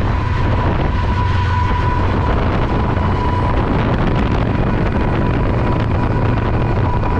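Canadian National GE diesel freight locomotive running past at close range: a steady loud rumble of engine and rolling wheels, with a thin steady high whine above it.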